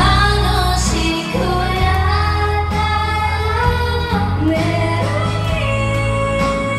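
Two women singing live into handheld microphones over backing music with a heavy bass line, amplified through a sound system; near the end only one voice carries on.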